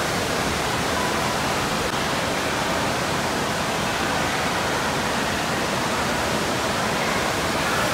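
Steady rushing-water noise of an indoor water park: water running down the slides, filling the big hall in an even, unbroken roar.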